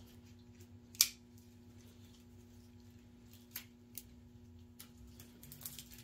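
Pocket knife and wiring harness being worked while electrical tape is cut away: one sharp click about a second in, then a few lighter ticks, over a faint steady hum.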